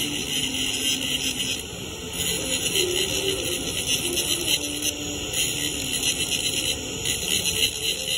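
Angle grinder with its disc grinding down a weld on 2-inch schedule 40 steel pipe: a steady grinding hiss of the disc on the metal.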